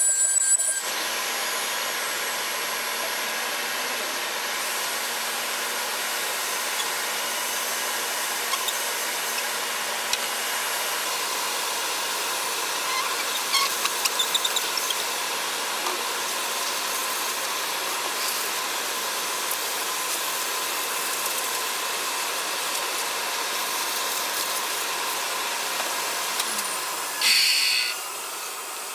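Shop vacuum hose sucking sawdust off a freshly CNC-cut plywood sheet: a steady rushing hiss, with chips rattling up the hose about halfway through and a brief louder rush near the end. For the first moment the CNC router's spindle is still heard cutting.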